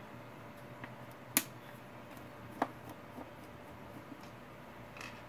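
Phillips screwdriver working screws out of a ghost box's top panel: a handful of scattered sharp metal clicks and ticks, the loudest about a second and a half in.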